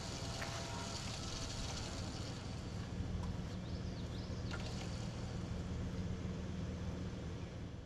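Four-wheel-drive truck's engine running steadily at a low idle.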